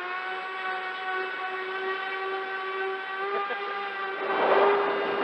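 Mini Talon RC plane's T-Motor brushless electric motor and propeller whining steadily in flight, heard through the onboard camera. About four seconds in, a rush of wind noise swells up over the whine.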